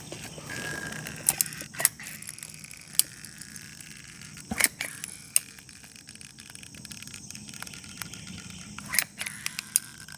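Caulking gun being worked to lay a bead of caulk: scattered sharp clicks and light clatter from the gun's trigger and plunger, over a faint steady hum.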